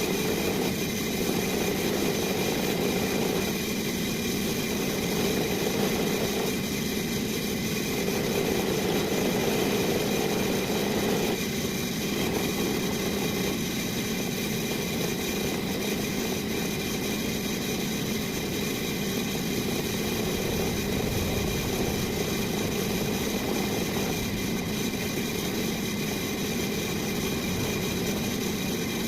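An electric power tool motor running steadily, with its sound growing and easing a little in places.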